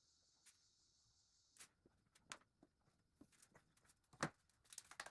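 Faint, scattered light taps and clicks, with one sharper knock about four seconds in and a quick cluster of clicks near the end.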